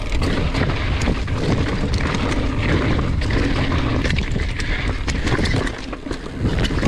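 Wind buffeting the camera microphone over the rumble of mountain bike tyres rolling on a rocky dirt trail, with frequent sharp clicks and rattles from stones and the bike.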